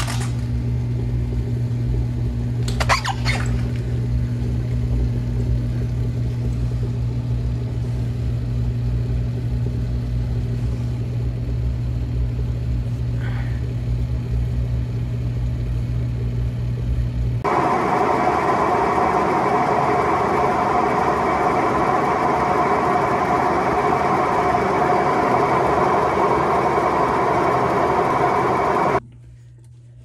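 GE top-load washer's drain pump running with a steady low hum, pumping water out during the spin cycle. About halfway through, the sound turns into a louder rushing noise, then cuts off suddenly near the end.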